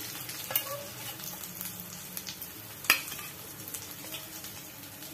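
Battered colocasia-leaf pieces sizzling steadily in hot mustard oil in a kadai, with a few sharp clicks of the steel spatula against the pan as fried pieces are lifted out, the loudest about three seconds in.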